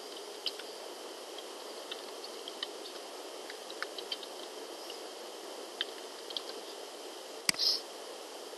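Computer keyboard keys tapped in scattered single clicks over a steady background hiss, with one louder click near the end.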